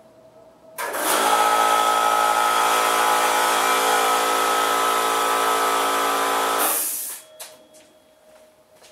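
A motor running steadily at one speed for about six seconds, starting and stopping abruptly, with the sound of a power tool or similar electric motor.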